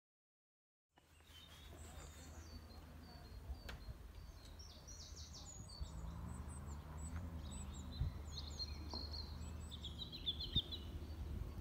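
Birds singing, many short chirps, over a low steady rumble; the sound fades in from silence about a second in.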